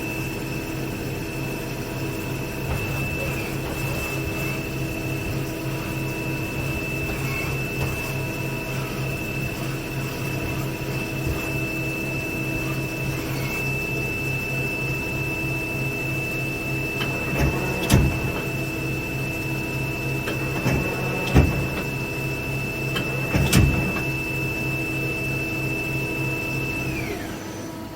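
Johnford TC-20 CNC lathe running: a steady high whine over a pulsing machine hum. The whine winds down and stops near the end, and there are a few sharp clanks in the second half.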